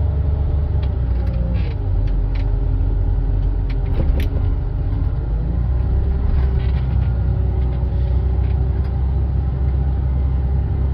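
John Deere 544K wheel loader's diesel engine running while it pushes snow, its pitch dipping and rising as the load and revs change. There is a single sharp click about four seconds in.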